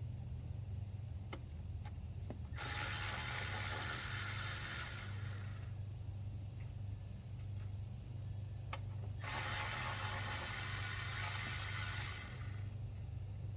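Ratchet wrench being worked to run out a fastener while the throttle body is removed, in two runs of about three seconds each. A few light tool clicks sound between the runs.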